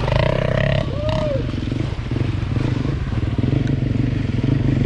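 Dirt bike engine running steadily at a low, even speed, with a brief call from a person's voice about a second in.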